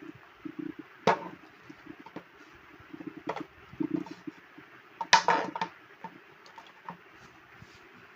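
Handling noises from a corded electric drill being picked up and turned over: a sharp knock about a second in, a few lighter clicks, and a short clatter of hard plastic around five seconds in. The motor is not running.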